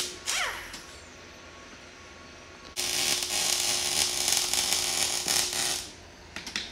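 MIG welder arc crackling and hissing as a bead is run on a steel exhaust pipe: one bead stops just after the start, and another runs for about three seconds from about three seconds in. A few clicks follow near the end.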